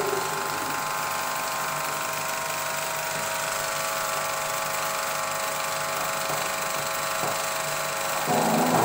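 Bauer B5 35mm film projector running: a steady mechanical whir from the motor and film transport, with several steady tones in it, growing louder and rougher near the end.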